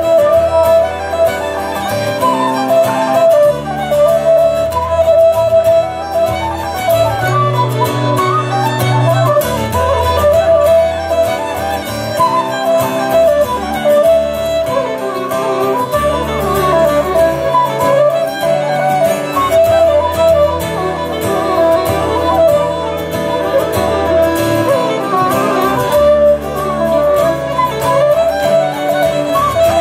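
Live folk band playing an instrumental tune: fiddle and flute carry a quick melody over acoustic guitar accompaniment.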